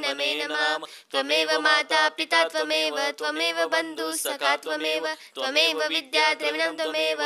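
Female voice singing a Hindu devotional hymn with long held notes, pausing briefly about a second in and again about five seconds in.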